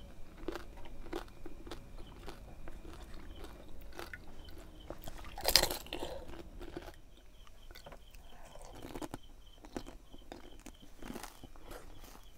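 Crisp pani puri shells being bitten and chewed with a full mouth: a run of close crunches, the loudest about five and a half seconds in as another puri goes in. After that the chewing is quieter and sparser.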